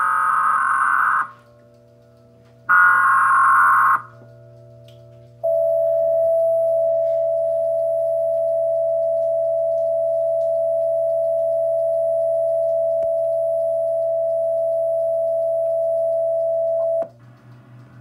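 Emergency Alert System monthly-test tones from a TV's speaker: two short buzzing data bursts about a second long each, then a long steady alert tone that starts about five seconds in and cuts off sharply near the end. A low steady hum runs underneath.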